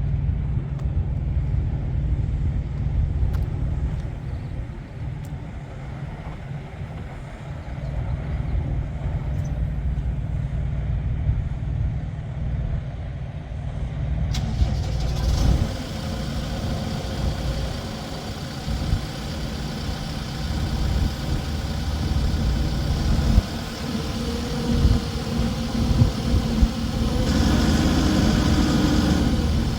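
Case 580N backhoe's diesel engine running steadily, its sound growing fuller and brighter from about halfway and louder again near the end.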